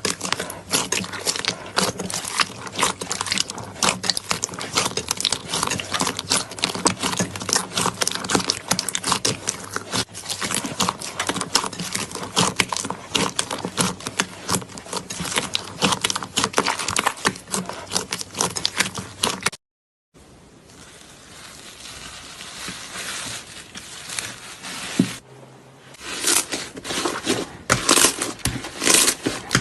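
Slime being squished and kneaded by hand: a dense run of sticky pops and crackles, broken by a sudden cut about two thirds of the way in. A quieter, softer stretch follows, then louder crackling resumes near the end.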